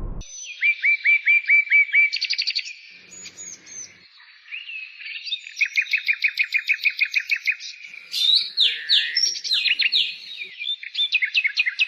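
A songbird singing: phrases of quick, repeated high chirping notes and trills, with a short quieter gap a few seconds in.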